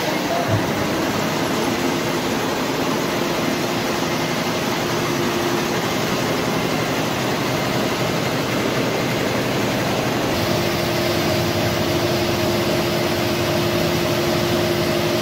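Richpeace two-head sewing and perforation machine running at speed, perforating leather: a steady, dense mechanical clatter with a faint hum, which shifts slightly about ten seconds in.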